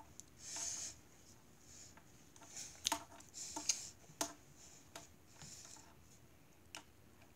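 Faint movement noise from a person moving close to the recording device: soft swishes and a few sharp clicks, the loudest clicks falling between about three and four seconds in.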